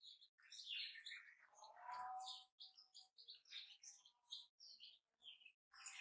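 Newborn chicks peeping faintly: many short, high chirps one after another, with one longer, lower call about two seconds in.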